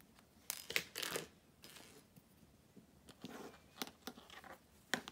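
Hands handling swimsuit fabric and elastic: a few short, sharp clicks and brief rustles as the layers are lined up and clipped together.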